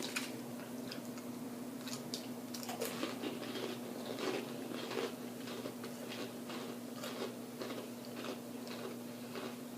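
A person chewing crunchy fried food close to the microphone: a run of irregular crunches and mouth clicks.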